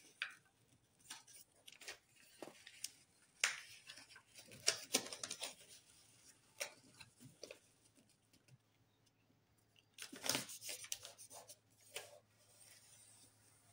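Sheet of lined notebook paper rustling and crinkling as it is folded and its creases pressed flat by hand, in irregular bursts that are busiest a few seconds in and again about ten seconds in.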